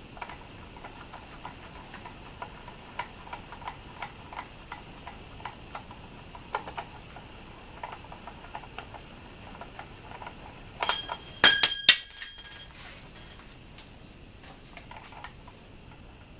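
Gearing and crank of an Atlas 7B metal shaper being turned slowly by hand, with faint irregular ticks and clicks as the parts move. About two-thirds of the way in comes a short, loud cluster of bright metallic clinks that ring on briefly, metal striking metal.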